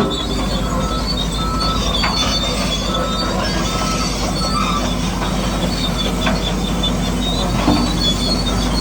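Bulldozer engine running steadily while its steel tracks squeal and clank, with high intermittent squeaks and a few short knocks.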